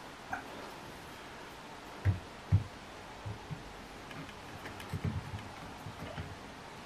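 Dull knocks and bumps of a BSA Lightning GRT air rifle's metal action being handled and seated into its wooden stock. Two louder thumps come about two seconds in, with lighter knocks around five seconds.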